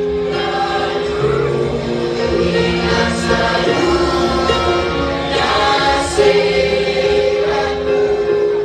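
Music: a song sung by a group of voices over instrumental accompaniment.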